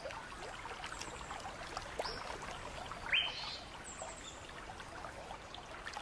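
A creek trickling, with scattered chirps and calls of small birds. One louder rising call comes about three seconds in, and a short run of high falling notes follows about a second later.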